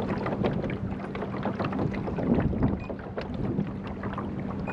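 Water lapping and slapping against a small aluminium boat's hull in irregular little knocks, with wind on the microphone and a steady low motor hum underneath.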